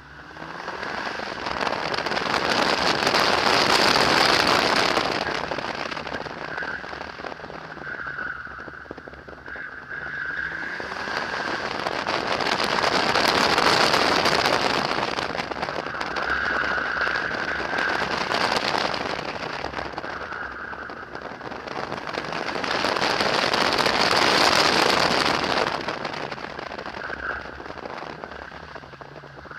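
A car driving a tight cone course, heard from a camera mounted on its outside: a rushing hiss over a faint engine note, swelling and fading three times, about ten seconds apart, as the car speeds up and slows.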